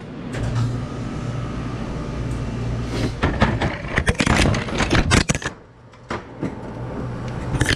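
A run of sharp knocks and clattering handling noise over a steady low hum. The hum carries the first few seconds; the clatter bunches between about three and five seconds in, as the camera is jostled and parts are handled.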